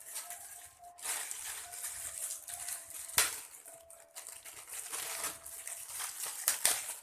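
Plastic packaging rustling and crinkling as microphone kit parts are handled, with a sharp click about three seconds in and a few lighter clicks near the end.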